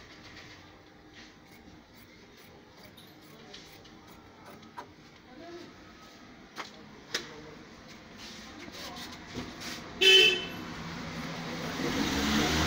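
Faint, scattered snips of fabric shears cutting through cloth. A vehicle horn gives a short toot about ten seconds in, and a vehicle rumbles past near the end, the loudest part.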